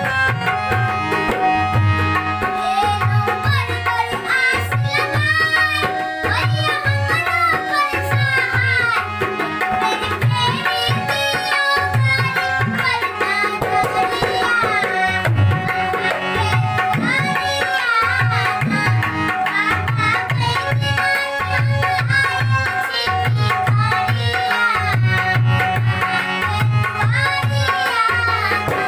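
Maithili devotional song (a nachari to Shiva) sung by a boy, with harmonium chords held underneath and a dholak drum keeping a steady rhythmic beat.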